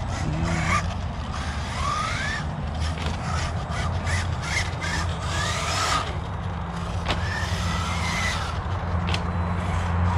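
Electric motor of a 1/8-scale ARRMA Notorious RC car whining up in pitch several times as it accelerates, with scattered sharp clacks from the car hitting the ground, over a steady low hum.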